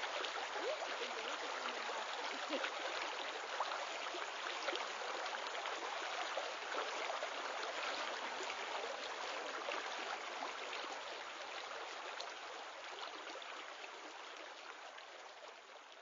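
Recorded woodland stream running: a steady rush of water that slowly fades over the second half.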